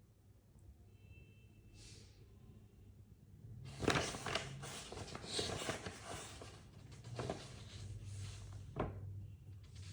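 Rustling and light knocks of things being handled, starting about four seconds in and going on for several seconds, over a faint steady low hum.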